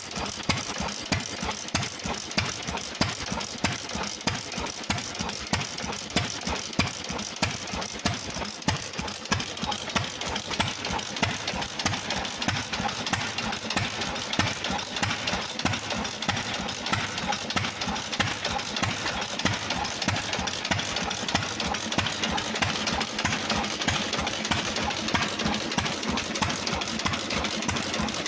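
Small vintage hit-and-miss stationary engine running unloaded: sharp firing beats about once a second over a steady clatter of the valve gear and igniter as the flywheels carry it between power strokes.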